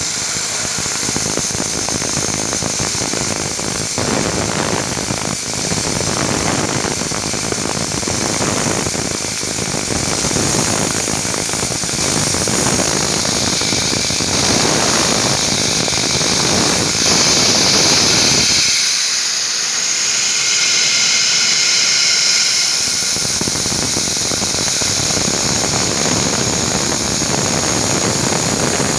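Romi Interact CNC milling machine at work, a loud steady hiss with a high whine. The lower part of the sound drops away for about four seconds a little past the middle, then returns.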